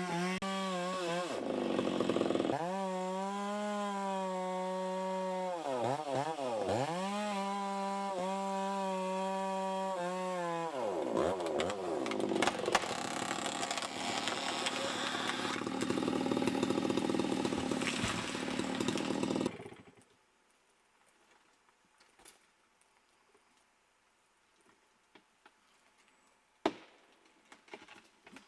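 Two-stroke chainsaw running at high revs, the pitch dipping briefly twice, then turning rougher and noisier as if loaded in a cut. It stops abruptly about two-thirds of the way through, leaving only a few faint ticks and one sharp click near the end.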